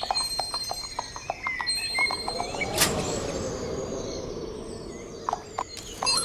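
Layered cartoon sound effects: hooves clip-clopping in quick knocks, with birds chirping over them. About three seconds in a single sharp, bright hit rings out and fades slowly, a magic-spell effect.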